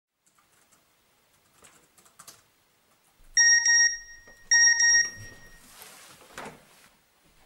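Electronic beeping in two short bursts of rapid beeps, after a few soft taps on a keyboard. Rustling movement follows the beeps.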